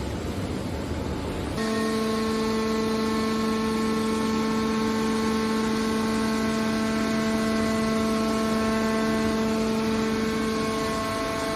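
Steady machine hum: a low rumble, then from about a second and a half in a steady droning tone with several overtones that holds without change.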